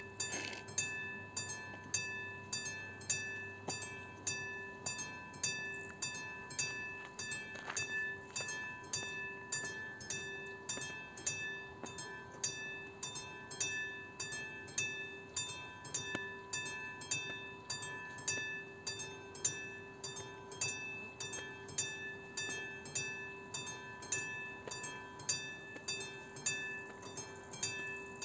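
Level crossing warning bell ringing over and over, just under two strokes a second, each stroke a bright ringing tone. It is the crossing's alarm while the red lights flash, warning road users that a train is approaching.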